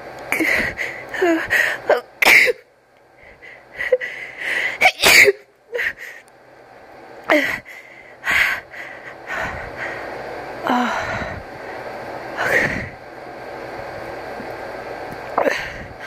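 A person sneezing again and again, with sharp gasping in-breaths building up between the sneezes. The loudest sneezes come about five seconds in, after a short pause.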